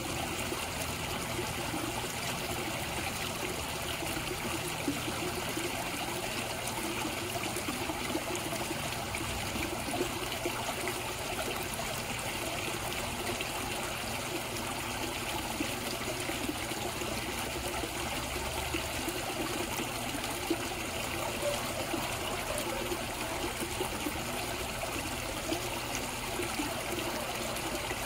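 Koi pond water trickling and splashing in a steady, unbroken flow.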